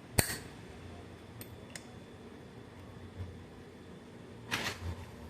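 Metal tools and gearbox parts being handled: one sharp clack about a quarter second in, a few light ticks, then a short clatter near the end.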